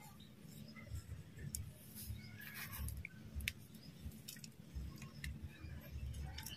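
Faint crumbling and pattering of fine soil rubbed between the fingers and sprinkled thinly over seeded plastic cups, with a few light clicks over a low steady rumble.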